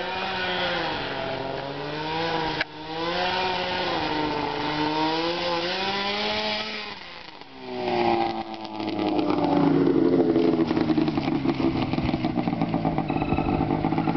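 Snowmobile engine towing a sled across the snow, its pitch rising and falling with the throttle. About eight seconds in it comes up close and its note drops, then it runs loud and near with a rapid, uneven pulsing as it pulls up and stops.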